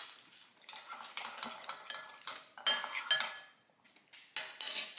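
A metal utensil stirring and clinking against a ceramic bowl, mixing grated Parmesan into olive oil and herbs. A run of short ringing clinks, the loudest around three seconds in and near the end.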